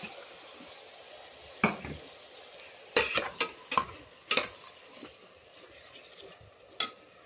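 A metal spoon scrapes and clinks against an aluminium pressure cooker as raw minced meat is stirred into the frying masala, over a steady low sizzle. There is one scrape about a second and a half in, a cluster of clinks between three and four and a half seconds, and one more near the end.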